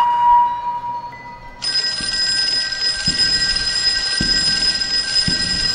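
A steady high electronic tone fades out about a second and a half in; then an alarm bell starts ringing continuously, with dull low knocks about once a second underneath.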